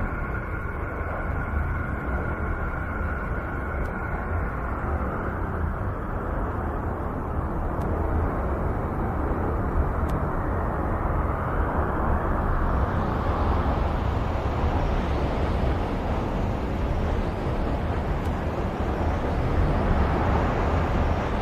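Continuous rumbling, hissing drone presented as the sound of the planet Uranus. A few faint steady tones fade out in the first few seconds, and a higher hiss swells in about twelve seconds in.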